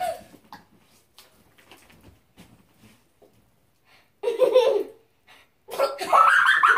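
Children's voices: a short vocal burst about four seconds in, then laughing near the end. Before that, only faint soft taps.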